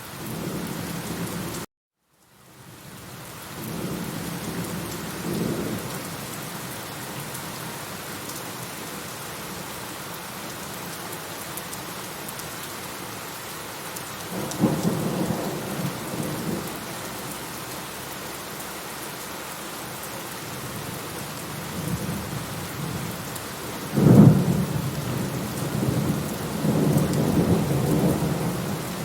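Steady rain with rolling thunder: low rumbles about five and fifteen seconds in, and a louder, sharper thunderclap about 24 seconds in that rumbles on to the end. About two seconds in, the sound drops out to silence briefly, then the rain fades back in.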